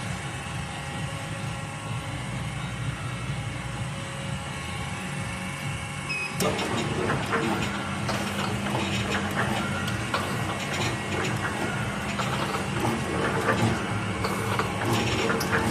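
Three-side-seal liquid sachet packing machine running with a steady hum; about six seconds in it gets suddenly louder, with rapid clicking and clattering from its moving parts.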